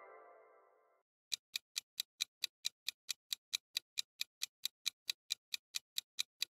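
Clock-ticking sound effect, a countdown for thinking time, with even ticks at about four to five a second starting a little over a second in. Before the ticking begins, the tail of a short chime-like musical sting fades out.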